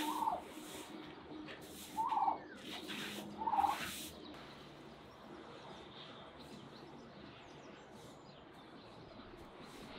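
White domestic turkey calling three times in short calls a second or two apart, over the scrape of a shovel on concrete in the first few seconds.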